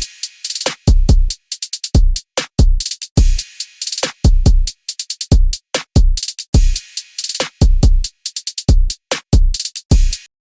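Intro music: an electronic drum-machine beat of deep kick drums and sharp high hits in a stop-start pattern, with short silences between hits. It cuts off abruptly near the end.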